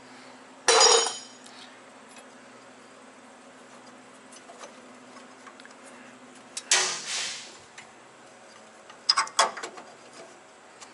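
Metal parts and tools clinking and clattering while the water pump and its pulley are worked off an APU engine: a loud ringing metallic clank about a second in, a brief noisy burst near the middle, and a few quick clinks near the end.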